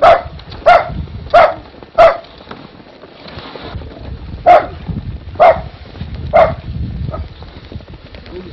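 A dog barking: four barks about two-thirds of a second apart, a pause, then three more.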